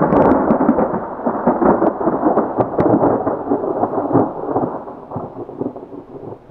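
A loud thunderclap rolling on: a crackling crash at the start that rumbles on and slowly fades.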